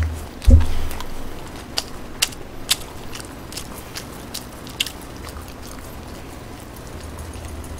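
A person chewing food close to the microphone, with sharp wet mouth clicks every half second or so over the first few seconds. A loud low thump comes about half a second in.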